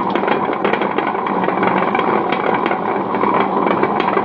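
Tabletop wet grinder running: its electric motor hums steadily while the stone rollers turn in the steel drum over a few chopped green chillies, with small irregular clicks throughout.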